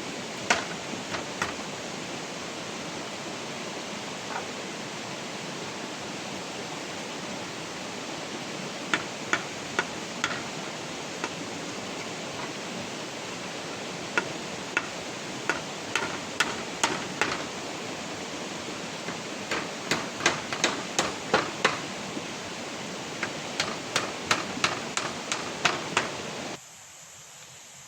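Steady rushing of rain or running water, overlaid with runs of sharp knocking strikes, about two or three a second, in several bursts with pauses between them. Shortly before the end the rushing and the strikes cut off to a much quieter background.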